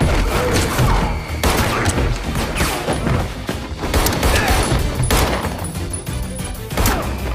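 Pistol gunshots in a close-quarters movie gunfight, about half a dozen sharp shots roughly a second apart, over a loud dramatic film score.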